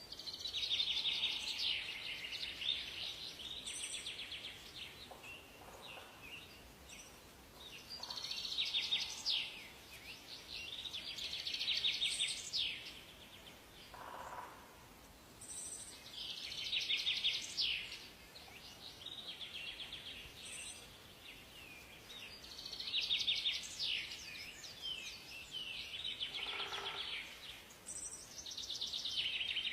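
Songbirds singing: rapid trilled song phrases repeating every few seconds, with short high chirps between them.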